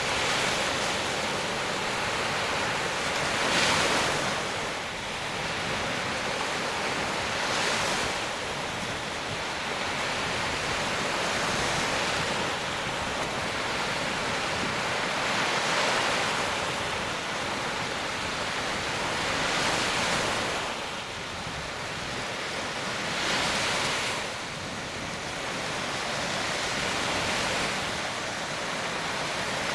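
Small Baltic Sea waves breaking on a sandy beach: a steady rush of surf that swells with each breaking wave, about every four seconds.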